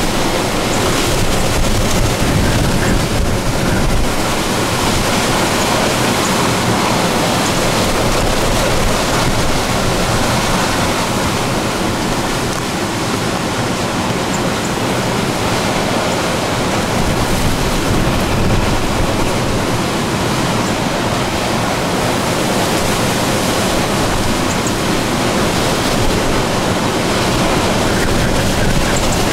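Hurricane wind blowing hard, a steady loud rush of noise, with wind buffeting the microphone.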